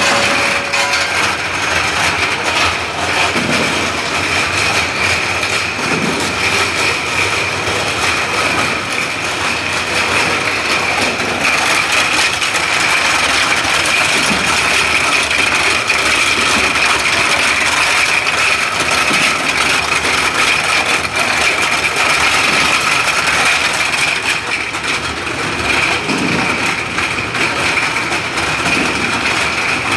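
US-100A automatic bottle unscrambler running: a steady machine noise with plastic bottles clattering and rattling through its elevator, sorting bowl and conveyor, with a steady high-pitched whine throughout.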